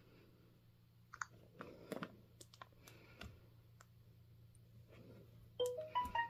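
Scattered light clicks and taps of fingers on smartphone touchscreens and cases. Near the end, a quick run of short electronic beeps at several pitches from the phones.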